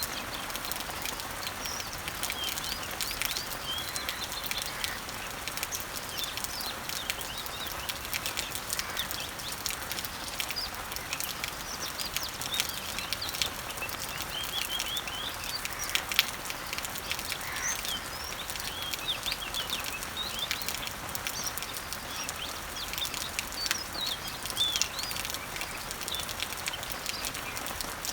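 Steady patter of rain on garden leaves with many birds singing and chirping throughout, short high chirps following one another, and scattered sharper drips.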